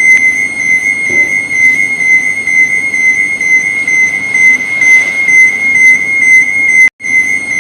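Electronic overload warning alarm: a continuous high-pitched tone with a slight warble. It cuts out for an instant near the end and comes straight back.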